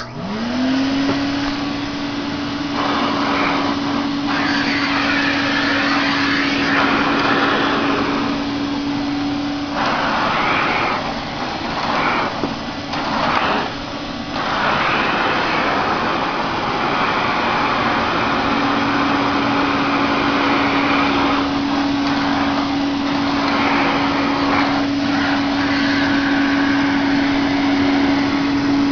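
Hoover Constellation 858 vacuum cleaner switched on, its motor spinning up within the first second into a steady hum over the rush of air. The air noise shifts and dips several times in the middle, and the hum fades out for a while before returning.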